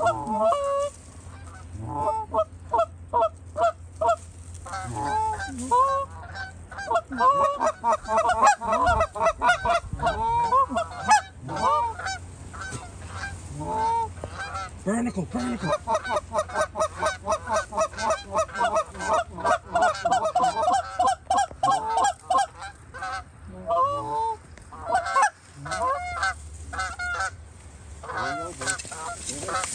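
Canada goose honks and clucks: many short calls in fast runs, thickest from about seven seconds in until about twenty-two seconds.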